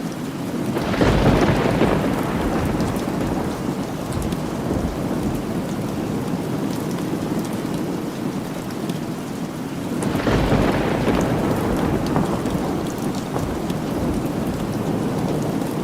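Steady rain falling, with two rolls of thunder that swell up about a second in and again about ten seconds in, each fading away over several seconds.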